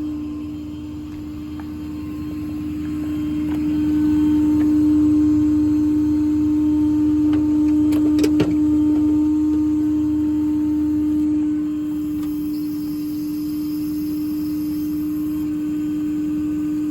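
A service-truck IMT crane's hydraulics running: a steady whine over the low rumble of the truck's engine, growing louder for several seconds as the crane moves and easing off near the end, with a few sharp clanks about eight seconds in.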